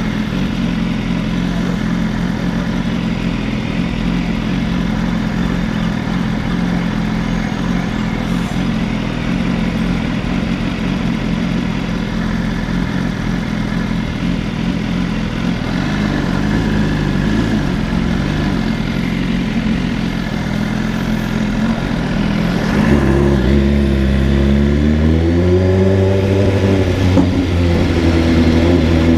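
Motorcycle engine running at a steady note under a constant rushing noise; a little over twenty seconds in, a louder, deeper engine note comes in and rises and falls in pitch as it is revved.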